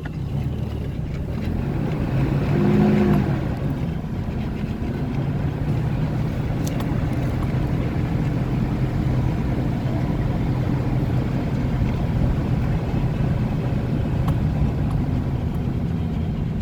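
Car driving along a road: steady engine hum and tyre road noise, with a brief louder swell about three seconds in.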